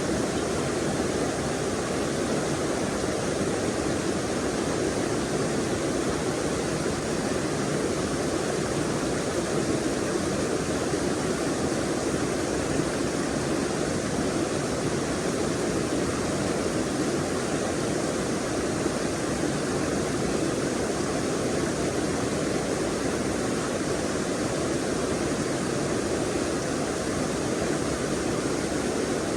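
Forest stream water rushing and splashing over rocks in a steady, unbroken wash.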